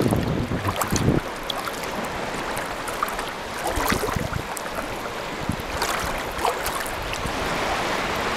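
Small waves lapping in shallow seawater, a steady rushing wash with scattered small splashes and a few low thuds in the first second or so.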